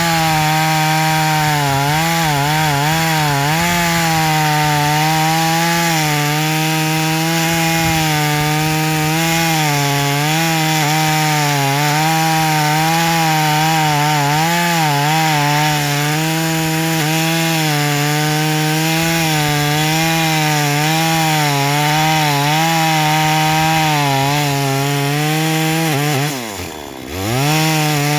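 Small 3800-model two-stroke chainsaw running at full throttle while cutting through a log, its pitch wavering as the chain bites into the wood. Near the end the engine speed drops sharply and climbs straight back up.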